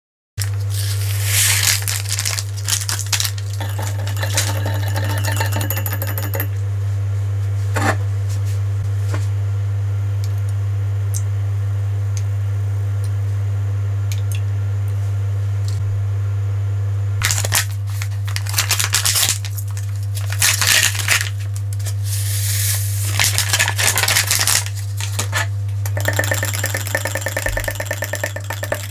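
Kitchen handling sounds over a steady low hum: clinks and rattles of glassware and plastic cups at several points, and near the end a wire whisk rattling rapidly against a glass measuring jug as a pink jello mixture is whisked.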